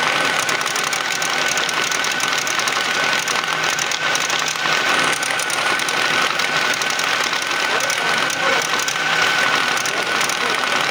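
Banknote counting machine running, its rollers pulling a stack of paper notes through one by one with a fast, continuous fluttering rattle over a steady thin motor whine.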